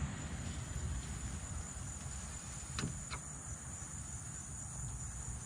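Steady high-pitched insect chirring from outdoors, with two light taps a little before halfway through.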